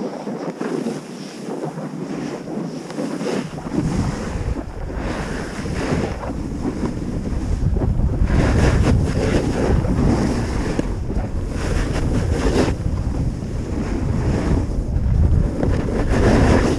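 Wind buffeting an action camera's microphone while sliding fast down a groomed ski run, with edges scraping on packed snow in surges through the turns. A deep wind rumble comes in about four seconds in as speed builds.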